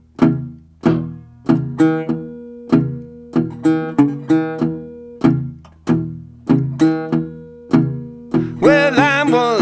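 Blues guitar intro: plucked notes and chords struck about twice a second, each ringing and fading. Near the end a sustained melodic line that bends in pitch comes in over it.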